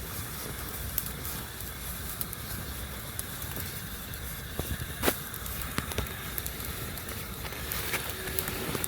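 Wood campfire crackling, with scattered sharp pops over a steady low hiss; the loudest pop comes about five seconds in.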